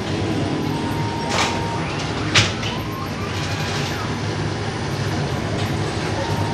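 Dough sheeting machine running with a steady low hum, with a light knock and then a sharp metallic clack about two seconds in.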